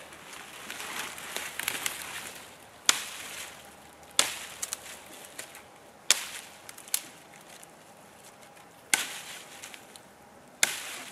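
A large Sami leuku knife chopping through dead conifer branches with swing cuts: five sharp chops a second or two apart, plus a lighter one, with dry branches rustling during the first couple of seconds.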